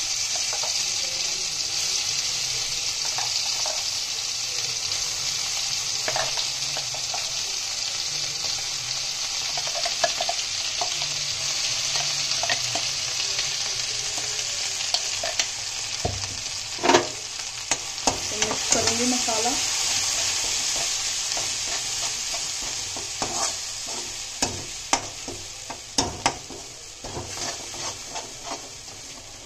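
Ground onion-tomato gravy masala sizzling in hot oil and cumin in a non-stick kadhai while a spoon stirs it, knocking and scraping against the pan. The sizzle is loud at first and slowly dies down over the second half, while the spoon knocks come more often toward the end.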